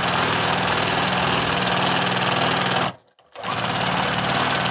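Juki TL-2010Q straight-stitch sewing machine with a walking foot, stitching steadily at speed. It stops abruptly about three seconds in, then restarts a moment later with a rising motor whine and runs on.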